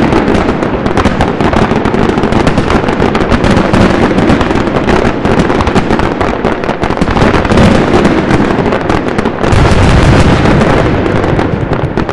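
Fireworks display at full barrage: a dense, unbroken stream of rapid pops and crackle from bursting shells, with a heavier run of low booms about nine and a half seconds in, then beginning to ease off near the end.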